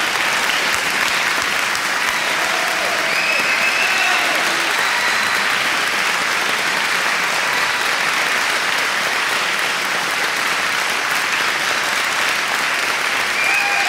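A large audience applauding steadily, with a few faint calls or whistles in the crowd.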